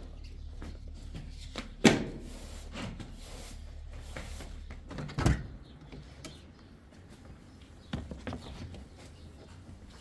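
Handling knocks and thumps: a sharp, loud knock about two seconds in, a heavier, deeper thump about five seconds in, and a lighter knock near eight seconds. A low steady hum underneath stops just after the thump.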